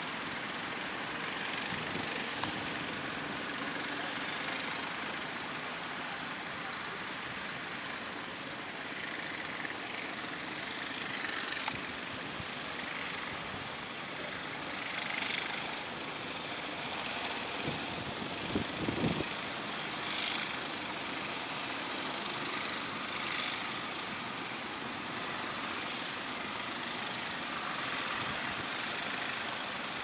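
Steady rush of breaking surf and wind with a low engine drone from fishing boats' motors underneath; a few low thumps a little past halfway.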